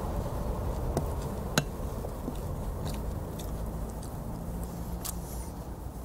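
A man eating from a wooden spoon with his mouth: lip-smacking and wet mouth clicks, the sharpest about one and a half seconds in. Under it runs a steady low rumble.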